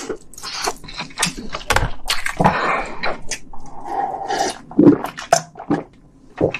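Close-miked mouth sounds of eating spicy instant noodles: wet chewing, smacking and clicks, then swallowing gulps of water from a glass from about halfway through.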